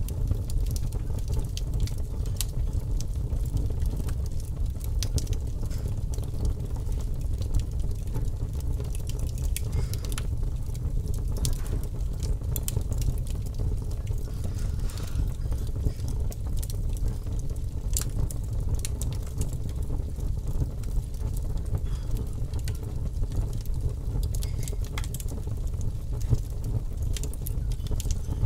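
Fire crackling, with irregular small pops and snaps throughout, over a steady low rumble of background noise.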